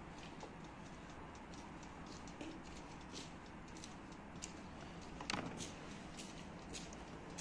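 Faint scattered clicks and soft taps of a pastry brush dabbing egg yolk onto raw croissant buns on a metal baking tray, with one louder tap about five seconds in, over a steady low background noise.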